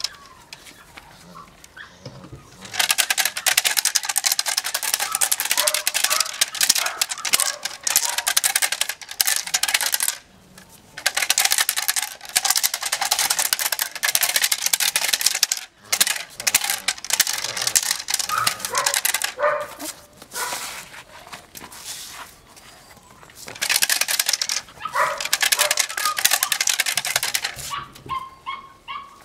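Belgian Malinois puppy growling with a rapid, rasping pulse as it bites and tugs a leather rag. The growling comes in long stretches of several seconds with short pauses between them.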